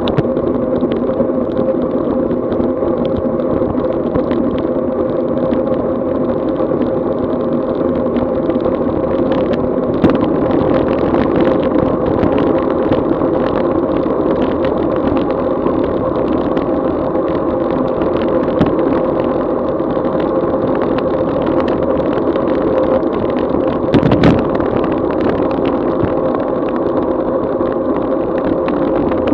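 Steady running noise of a bicycle ride on wet roads, picked up by a bike-mounted action camera: tyre and wind noise with a steady hum. There is a sharp knock about ten seconds in and a short jolt about 24 seconds in.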